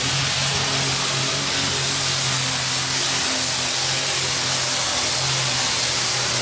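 Case pulling tractor's engine held at full throttle while hauling a weight-transfer sled: a steady, even engine drone with a high, steady turbocharger whistle above it.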